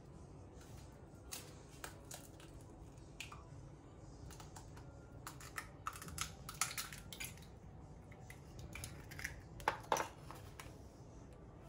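Eggshell crackling and clicking as a cracked egg is pulled open over a ceramic bowl, with scattered light taps. The clicks come thickest about halfway through, and two sharper taps come near the end.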